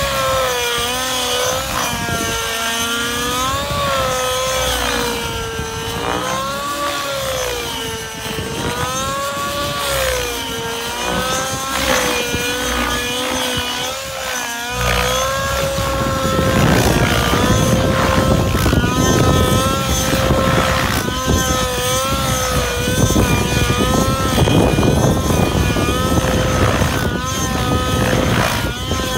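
Align 700XN nitro RC helicopter's glow engine and rotor running hard through aerobatics: a loud high-pitched whine whose pitch swings up and down every second or two. From about halfway the pitch holds steadier and the sound gets louder, with a rough low rumble underneath.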